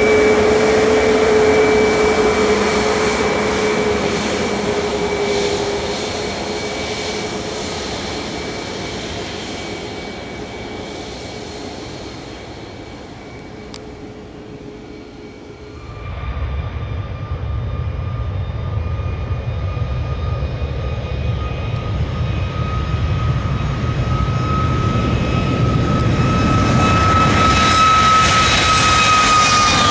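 Boeing 737 MAX 8's CFM LEAP-1B jet engines running, a steady whine that slowly fades. About halfway it changes abruptly to a louder low rumble with a higher whine that builds, and the whine's pitch falls near the end.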